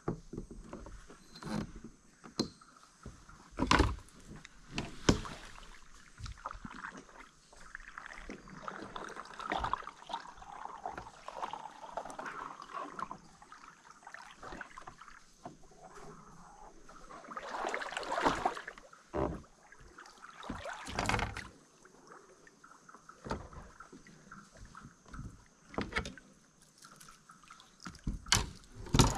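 Kayak being paddled: irregular swishes of the paddle through water, with several sharp knocks scattered through, and a faint steady high-pitched drone in the background.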